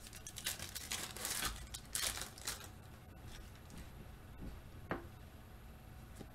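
Foil wrapper of a Panini Contenders football card pack being torn open and crinkled in a quick run of rustles over the first couple of seconds, then quieter sliding and handling of the cards, with one short tap about five seconds in.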